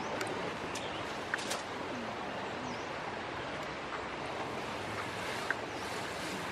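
Steady outdoor background noise, an even hiss, with a few faint clicks and two short high chirps.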